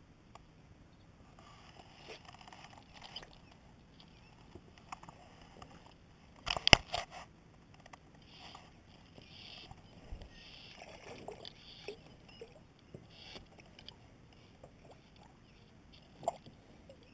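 Handling sounds of fly fishing from a plastic kayak while a small bluegill is played in: rustling of fly line stripped by hand, small clicks of the rod and reel, and light water sloshing. A brief cluster of sharp knocks, the loudest sound, comes about six and a half seconds in.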